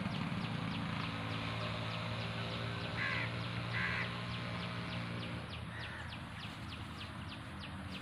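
Outdoor ambience: a rapid, even series of short high falling chirps, about three a second, goes on throughout, from an insect or bird. Two short harsh calls come about three and four seconds in, and a low steady hum runs underneath.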